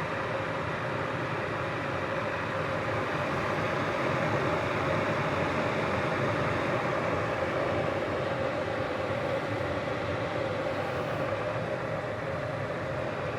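Proctor Silex 1000-watt, 1-liter electric kettle heating water, a steady rumbling hiss that swells slightly a few seconds in.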